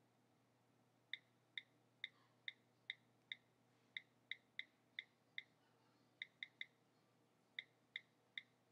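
iPod Touch 2G on-screen keyboard click sounds from its built-in speaker, one short, sharp tick per key press, about seventeen in irregular runs with brief pauses, as a phrase is typed.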